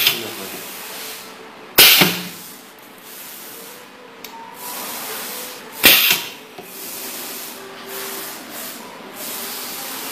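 Desktop pneumatic hot stamping press cycling its air cylinder: three short, sharp hisses of compressed air, right at the start, about two seconds in and about six seconds in, over a lower steady hiss.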